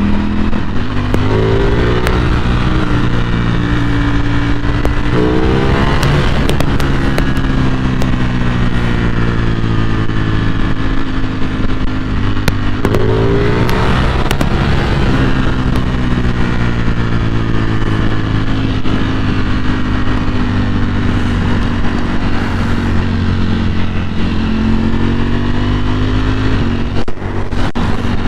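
Ducati Panigale V4S superbike's V4 engine under way: its pitch climbs sharply about a second in, again around five seconds and around thirteen seconds, and sinks slowly after each climb. Scattered sharp pops from the exhaust are heard over steady wind and road noise.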